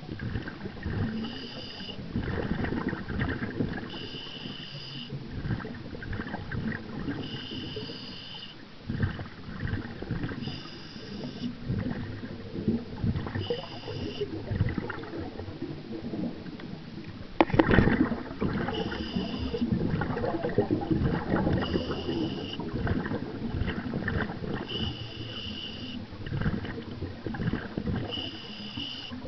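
Scuba diver's breathing heard underwater: a short hiss from the regulator on each inhale, about every three seconds, alternating with bubbling from each exhale. One sharp knock about 17 seconds in.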